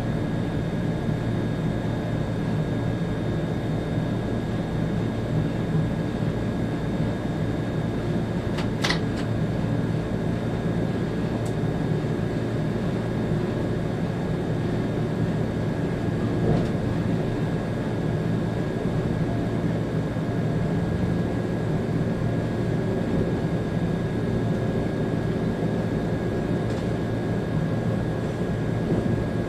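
Cab noise of an ÖBB Railjet train running at speed: a steady rumble of wheels on rail with a constant high electrical whine. There is one brief sharp squeak about nine seconds in.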